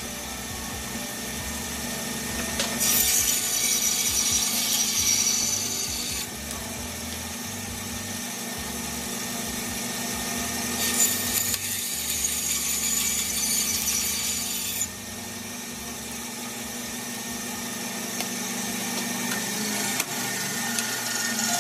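Bandsaw running with a steady motor hum while slicing a dry banksia seed pod. Two louder stretches of cutting noise come as the blade goes through the woody pod, one a few seconds in and a longer one around the middle.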